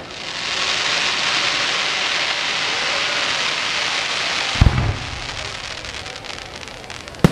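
Aerial fireworks: a long, dense crackling hiss from the shells for about four seconds, then a sharp, deep burst bang with a trailing rumble about four and a half seconds in. Scattered crackles follow, and another sharp bang comes near the end.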